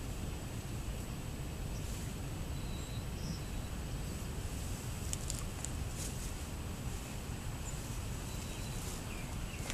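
Steady low outdoor rumble with a few faint, short bird chirps, and a couple of brief clicks about five seconds in.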